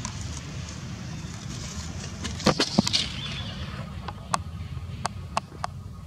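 Sharp crackling clicks, like dry leaf litter being crushed: a quick cluster about two and a half seconds in, then a few single clicks later, over a steady low rumble.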